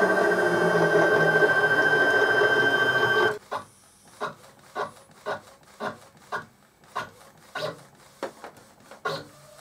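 Epson Stylus Photo R1900 converted to a direct-to-garment printer: a motor runs with a steady whir while the shirt platen is drawn in under the printer, stopping abruptly about three seconds in. Then the printer prints on the shirt, making short, evenly repeated strokes about twice a second.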